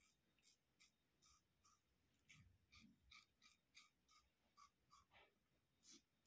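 Near silence, with very faint short clicks about two or three a second.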